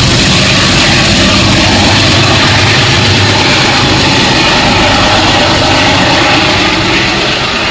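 Diesel-hauled passenger train passing close, a steady loud engine drone with wheel and rail noise, the low drone easing a little near the end.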